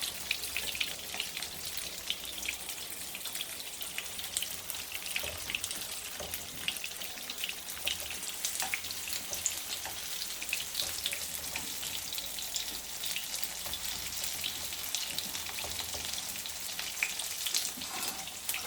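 Tofu deep-frying in hot cooking oil: a steady sizzle with frequent sharp crackles and pops of spattering oil.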